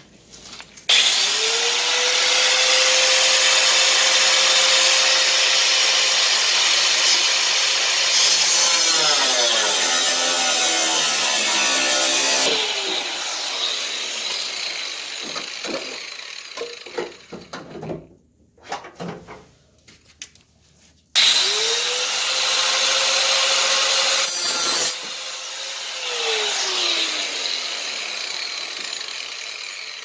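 Corded power tool cutting into a truck's sheet-metal fender. About a second in the motor spins up to a steady whine over a harsh cutting noise, its pitch sagging under load, and after about eleven seconds it winds down. A few short bursts follow, then a second run of about four seconds that spins up and coasts down.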